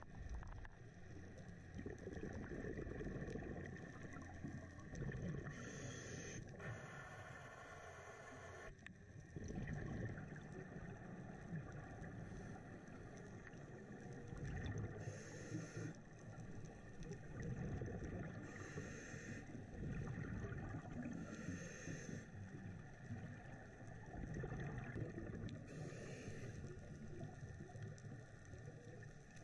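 Muffled underwater noise picked up by a camera in its housing on a scuba dive: a steady low rumble of water, with a hissing rush every few seconds from a diver's scuba regulator breathing.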